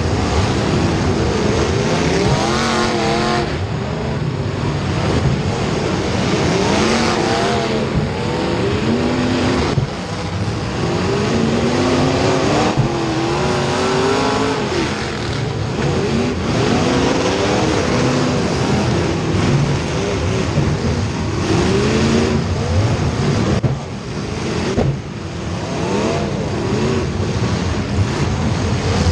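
Several race car engines revving on a track during a feature race, their pitches repeatedly rising and falling as the cars accelerate and lift for the corners.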